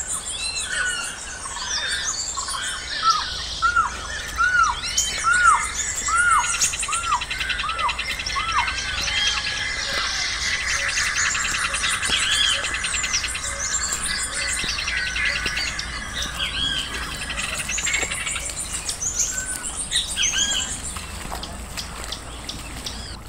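Mixed chorus of wetland birds calling and singing together. A run of about eight arching whistled notes comes a few seconds in, a long rapid trill runs through the middle, and overlapping chirps carry on throughout.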